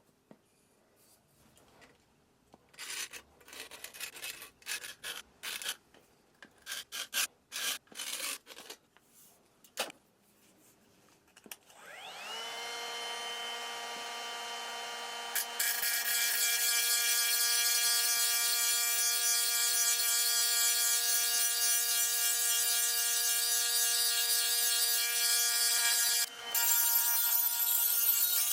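Irregular hand scraping or rubbing strokes. Then a small power tool spins up to a steady whine, and from about halfway through a louder, steady abrasive hiss joins it as the tool grinds or sands, with a brief break near the end.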